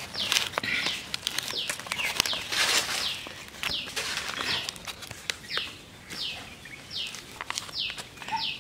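A bird calling over and over in short falling chirps, about two a second, with crisp rustling and crackling of fresh leaves being folded and tied into a parcel.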